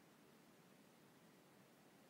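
Near silence: faint steady room tone with a light hiss.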